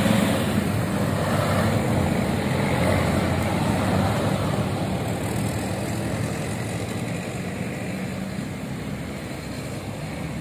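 Road traffic passing close by: minibus, motorcycle and car engines with tyre noise, loudest at the start and gradually fading away.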